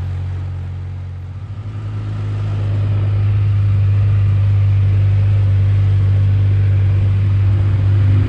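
ATV engine running as the quad rides along a gravel road. The engine eases off about a second in, then picks up and runs steadily.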